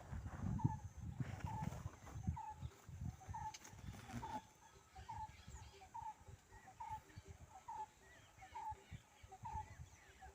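A bird giving a short, repeated call about every half second, with low rumbling noise in the first few seconds and faint higher chirps later.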